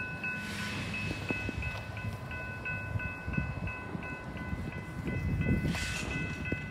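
Railroad grade-crossing warning bell ringing steadily, about three strikes a second, over a low rumble, with two swells of hiss, one about half a second in and one near the end.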